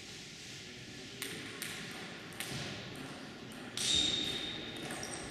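Table tennis ball bouncing on the table a few times, irregularly spaced sharp ticks. The last bounce is the loudest and has a short ringing ping.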